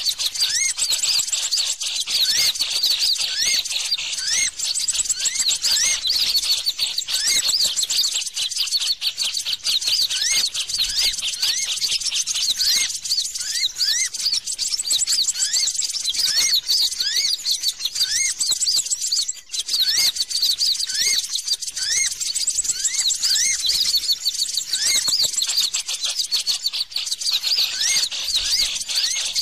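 Small birds chirping in a dense, unbroken stream of quick rising high chirps, several a second: a bird-lure call (suara pikat) used to draw wild birds to trap sticks.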